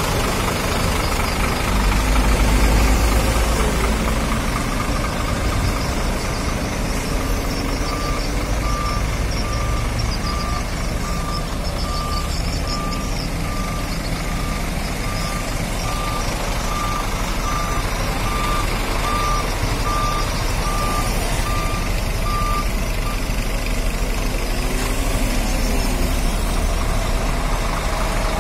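Heavy diesel engine of a Scania K410iB coach idling with a steady low rumble. A reversing alarm beeps evenly, a little over once a second, through the middle stretch, for about fifteen seconds.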